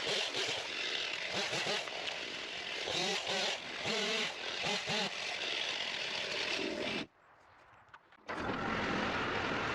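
Skid steer engine working hard, its pitch rising and falling as the load changes. About seven seconds in the sound drops out for about a second, then comes back as a steady run.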